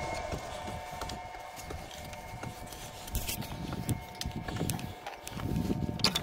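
Footsteps and knocking on wooden boards: irregular low thuds and sharp clicks, loudest near the end, over a faint steady hum.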